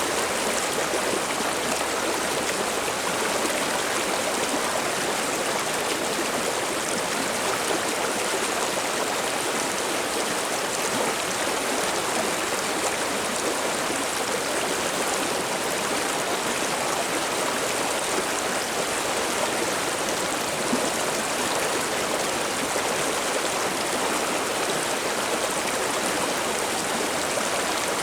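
River water flowing and babbling steadily, an even unbroken rush.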